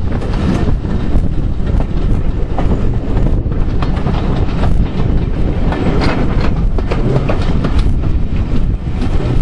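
Railway passenger carriage running at speed, its wheels rumbling and clattering over the rail joints, heard from an open carriage window.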